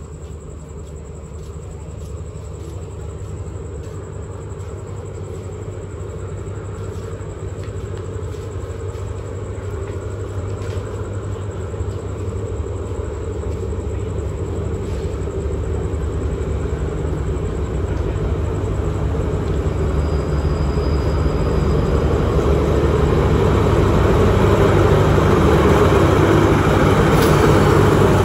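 An SRT Alsthom diesel-electric locomotive draws a passenger train into the station. Its engine drone and the rumble of the wheels grow steadily louder as it approaches, and are loudest as the locomotive passes close by near the end.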